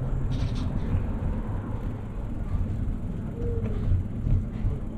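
Steady low rumble of a moving bicycle ride, wind and rolling noise, with a brief rattle about half a second in.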